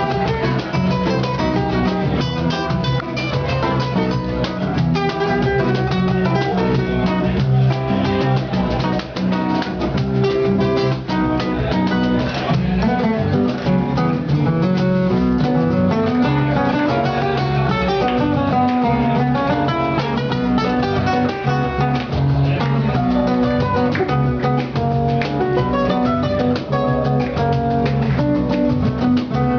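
Music on acoustic guitar: quick plucked and strummed notes over a steady bass line.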